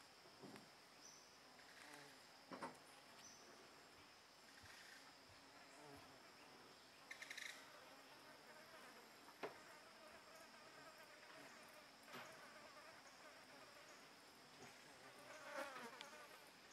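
Faint steady high-pitched insect drone, with a few soft rustles and clicks scattered through it.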